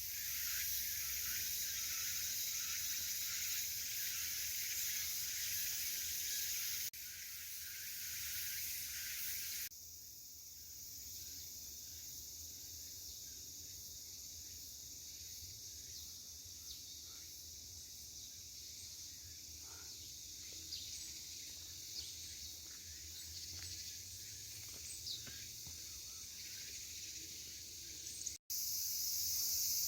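Steady high-pitched chorus of insects, with a few faint clicks. The sound changes abruptly about 7 and 10 seconds in and again near the end, and is quieter in the middle stretch.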